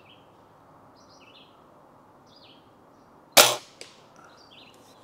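Daisy Powerline 1101S air gun firing a single sharp shot about three and a half seconds in, followed by a quieter click about half a second later. Birds chirp in the background.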